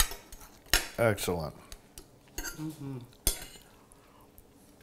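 Metal forks clinking and scraping on dinner plates while pie is cut and eaten, with a few sharp clinks standing out.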